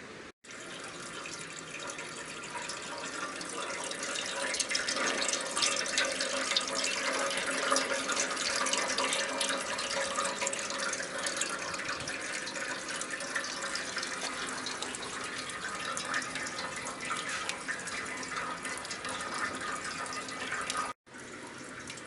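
Crab slit-cutting machine running: a steady, watery hiss with fine crackle and faint steady machine tones, building over the first few seconds. It drops out briefly near the start and again near the end.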